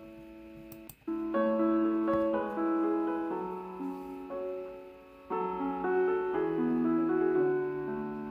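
Background piano music: a gentle melody of held notes, with brief pauses about a second in and again about five seconds in.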